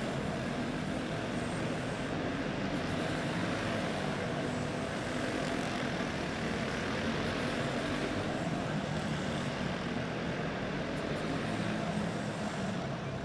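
Several single-cylinder clone kart engines racing together, a steady mixed engine drone that eases slightly near the end.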